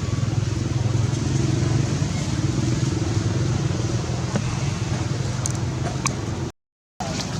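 Steady drone of a motor vehicle engine running, with a few faint clicks over it. It cuts off abruptly near the end for about half a second.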